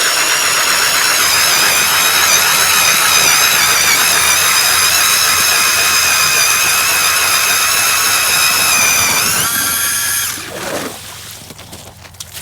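Power ice auger drilling a hole in lake ice: a steady, high motor whine with many overtones. It rises in pitch and then cuts off about ten seconds in.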